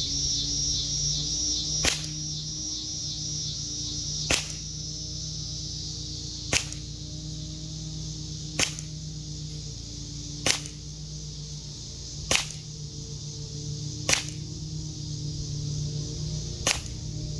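Gamo P-430 non-blowback CO2 pistol firing eight single shots, each a sharp pop, about two seconds apart.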